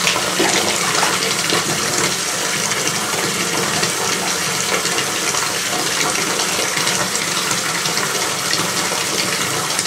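Steady rush of water in a bathtub, like a tap running into shallow water, with small splashes from cats wading in it.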